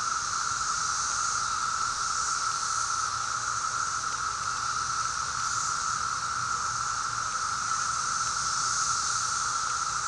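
Dense chorus of Brood V periodical cicadas: a steady, unbroken droning whine.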